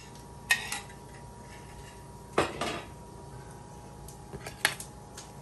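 Metal cutlery clinking against ceramic plates and bowls as a dish is handled: a couple of light clinks about half a second in, a louder clatter with a second knock about two and a half seconds in, and a few small taps near the end.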